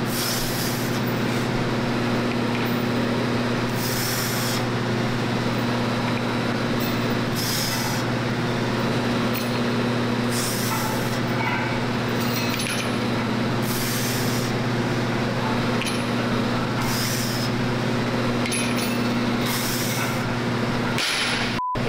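Steady hum of gym air handling with a short hiss about every three seconds, about eight in all: a lifter breathing out on each rep of a set of Zercher good mornings. The sound cuts out briefly near the end.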